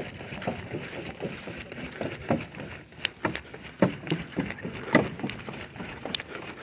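Footsteps on wooden stair treads: uneven thuds and knocks of shoes on the wooden steps, over a steady rushing noise.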